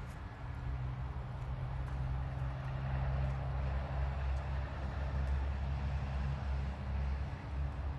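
Low, steady engine rumble, with a rushing noise that swells a few seconds in.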